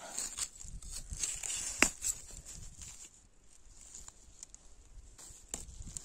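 Footsteps and rustling on a gravelly path strewn with dry leaves, a run of small irregular crunches and clicks with one sharp click about two seconds in.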